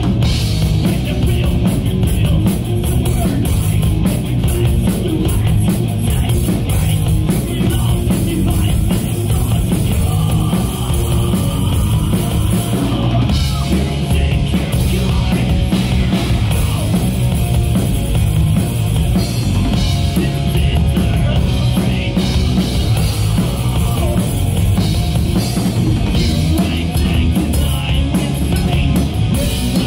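Rock band playing live: electric guitars, bass guitar and drum kit, with a vocalist singing over them, loud and steady throughout.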